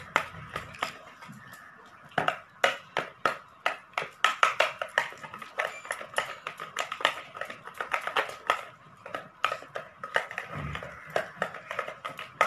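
Wire whisk beating curd and melted butter in a plastic bowl, clicking against the bowl about three times a second, stronger from about two seconds in.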